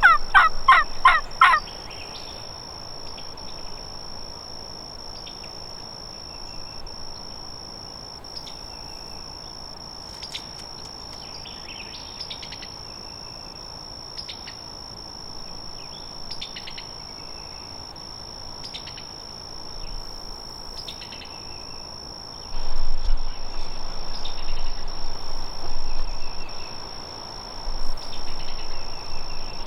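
A wild turkey gobbles, a rapid rattling call that ends about a second and a half in. After that, a steady high-pitched insect drone runs on with scattered faint bird chirps, and a louder noise without pitch comes in for the last seven seconds.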